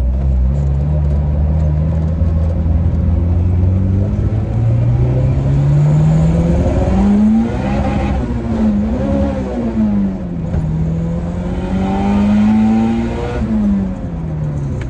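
Turbocharged LS/VTEC four-cylinder engine in an Acura Integra revving hard in first gear. Its pitch climbs steadily for about seven seconds and wavers near the top, then drops and climbs a second time before falling off near the end, as the car fails to get into second gear.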